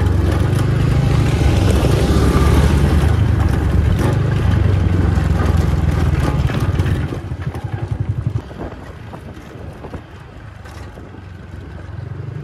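Scooter engine running while riding a dirt track, with a rush of wind and road noise. About seven seconds in it drops to a fast pulsing idle, then cuts off about a second later.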